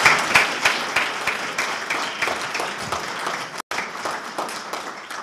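An audience applauding, dying away near the end.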